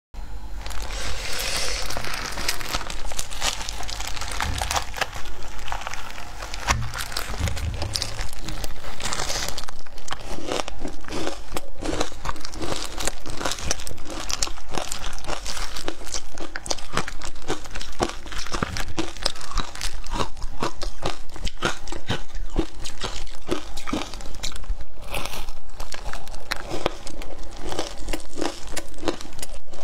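A slab of frozen matcha ice crunching and crackling as gloved hands break it and crumble it out of its tray, a dense run of many small sharp cracks that grows louder and busier about eight seconds in.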